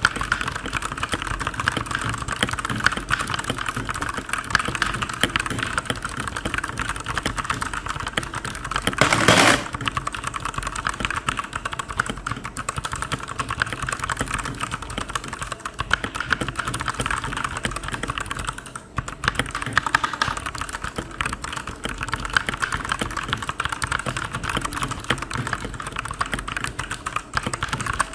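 Fast continuous typing on a Digital Alliance Meca 6 Plus mechanical keyboard, a dense stream of key clicks. A louder clatter lasts about half a second around nine seconds in, and the typing pauses briefly a little after halfway.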